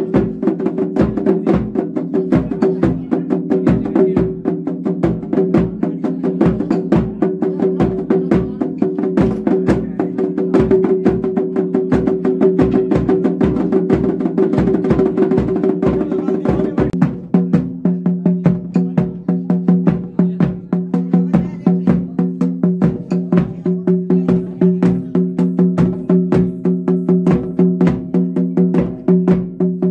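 Traditional Himachali devta procession music: drums beat a quick, steady rhythm of sharp strokes under long held wind-instrument tones. The held tones drop to a lower pitch about seventeen seconds in.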